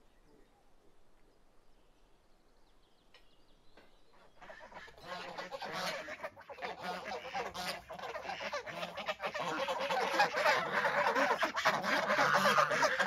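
A flock of white domestic geese honking, many calls overlapping. They start about four seconds in after a near-quiet opening and grow louder toward the end.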